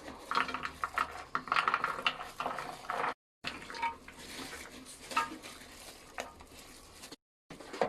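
Vegetables being washed by hand in water, with splashing and clinks of dishes and utensils. The sound cuts out completely twice for a moment.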